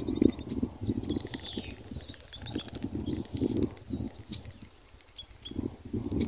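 Irregular rustling and muffled thumps from moving through tall grass on a ditch bank, with wind buffeting the microphone; it quietens for a moment near the end. A short series of faint high chirps about halfway through.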